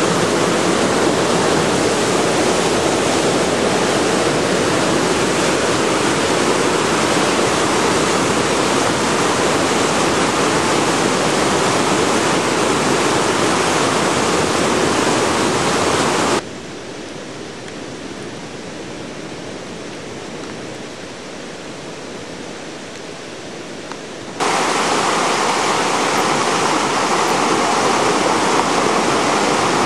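Floodwater rushing in a steady, loud, even wash. About 16 seconds in it drops suddenly to a quieter level for about eight seconds, then comes back just as suddenly.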